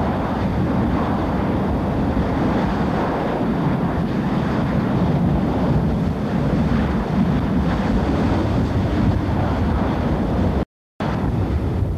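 Steady roar of a burning well blowout and the firefighting hoses' water spray, buffeted by wind on the microphone. It cuts out for a moment near the end, then comes back.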